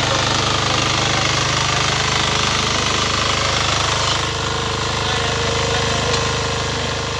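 Kirloskar Mini T 8 hp power weeder's engine running steadily with a fast, even beat while its rotary tines till soil.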